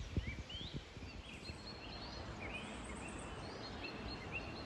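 Small songbirds singing, short rising chirps repeated again and again with a brief high trill about halfway, over a faint steady background hiss. A few low thumps sound in the first second.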